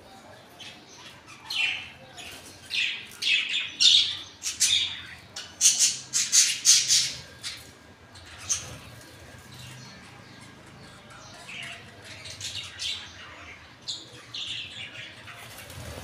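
Parrots in an aviary, Indian ringneck parakeets and budgerigars, calling and squawking. A run of loud calls comes in the first half, then fewer and quieter calls near the end.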